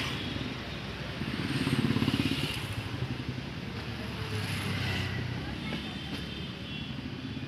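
Street traffic: motor vehicle engines passing on the road, one swelling loudest about two seconds in, over a steady traffic hum.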